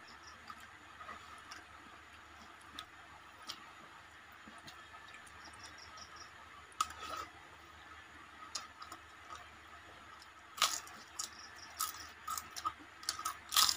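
People eating by hand: faint soft clicks of chewing and fingers working rice. From about ten seconds in come a run of sharp crunches as crisp fried snacks are bitten.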